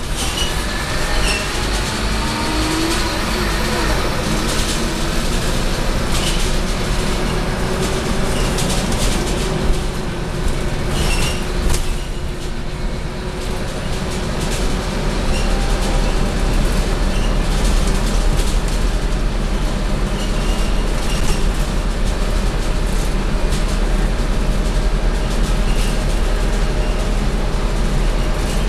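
Scania K230UB city bus under way, heard from inside the passenger cabin: the DC9 five-cylinder diesel and ZF Ecomat automatic gearbox run with a steady low drone, with short clicks and rattles from the body. It eases off briefly near the middle, then grows louder again.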